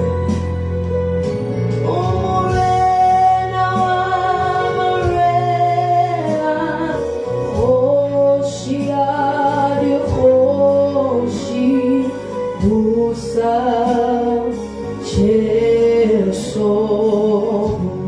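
Gospel music: male and female voices singing a melody over sustained bass and keyboard chords, with a steady beat.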